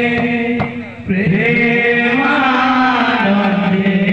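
Male voices singing a kirtan chant in long held notes, amplified through microphones and loudspeakers. The singing dips briefly about a second in, then carries on.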